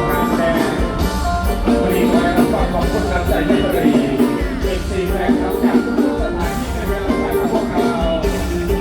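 Loud live Isan mor lam band music: a singer's held notes over electric instruments and a steady drum beat of about two strokes a second.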